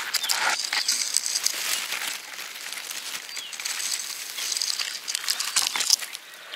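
Close rustling and crackling, like handling or brushing through dry material, with a cluster of sharp clicks near the end. A few short high bird chirps sound in the background.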